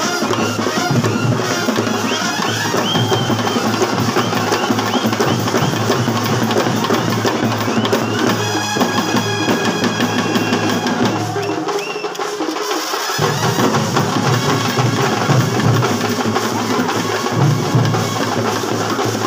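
Kerala bandset brass band playing: trumpets over snare drums and a bass drum. The deep drum beats stop for a moment just after the middle, then come back in.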